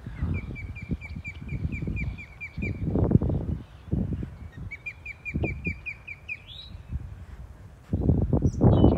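Osprey calling: two runs of short, evenly spaced whistled chirps, about five a second, the second run ending in a rising note. Low gusty rumbling sits underneath and swells near the end.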